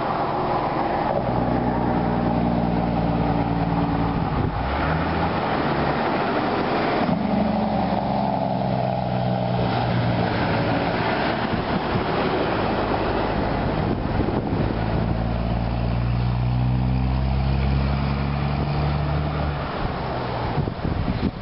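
A B-double truck's diesel engine running as it passes close by, over tyre and road noise. The engine note breaks off and comes back several times.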